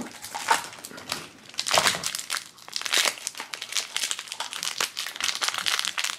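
Thin plastic blind-bag wrapper crinkling and crumpling in the fingers as it is worked open, an irregular run of crackles.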